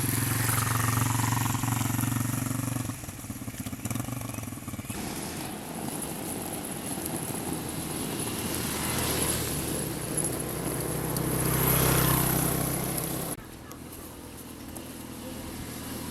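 Motor vehicle engines running on the road, with a noisy background. The sound swells as a vehicle comes close about twelve seconds in, then drops off suddenly just after.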